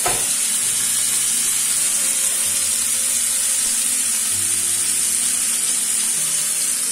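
Marinated basa fish fillets frying in hot mustard oil in a nonstick pan: a steady sizzle.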